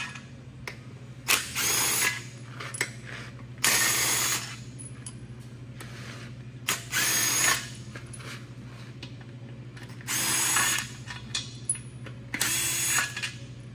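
Cordless impact driver running out the Torx-plus bell housing bolts of a 4L60E transmission in about six short bursts, each half a second to a second long.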